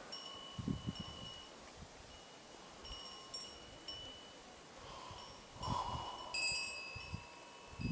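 Clear, ringing chime-like tones at several pitches, sounding on and off and overlapping, with a few low thumps.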